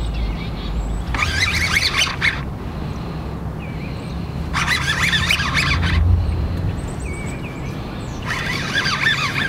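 A songbird singing three short bursts of chattering song, about three and a half seconds apart, over a low steady hum.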